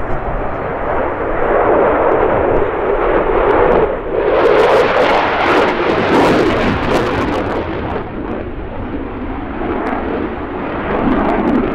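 Eurofighter Typhoon's twin EJ200 turbofan engines at high power in a display manoeuvre: a loud continuous jet rush with a harsh crackle from about four seconds in, easing off somewhat after about eight seconds.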